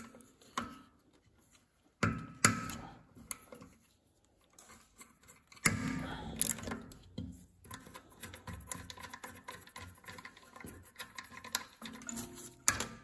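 A socket ratchet clicking as the bolts holding the lighting coils are unscrewed from the engine's stator plate. A few sharp clinks of metal tools and bolts come first, then a long run of quick ratchet ticks starting a little before the middle.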